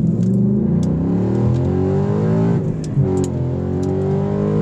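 Car engine accelerating, its pitch climbing, falling back about three seconds in, then climbing again.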